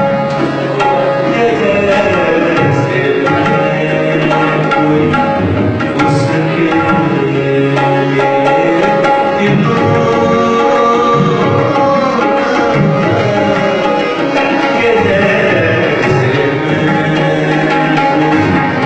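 Tabla playing in a music performance, over a melodic accompaniment that holds long steady notes.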